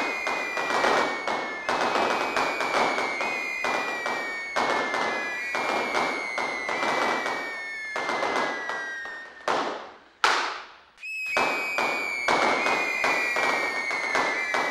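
Fireworks crackling densely, with a string of high whistles that each slowly fall in pitch over about two seconds. About ten seconds in the crackle drops away briefly with a couple of whooshes, then the crackling and whistles start again.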